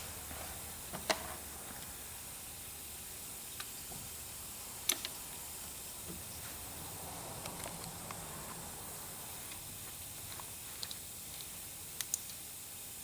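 Steady low hiss with a few scattered light clicks and taps from handling tools and fuel-system parts, sharpest about a second in, near the middle and twice near the end.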